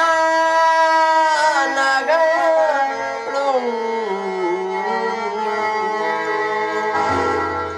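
Devotional song in Carnatic style: a singer holds long, wavering notes and slides the melody downward over a few seconds, with instrumental accompaniment underneath. It is louder in the first three seconds, then settles a little lower.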